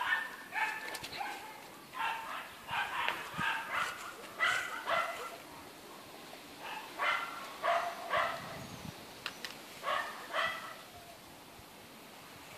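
A dog giving repeated short, high-pitched whining yelps in clusters of several calls, with pauses of a second or two between clusters.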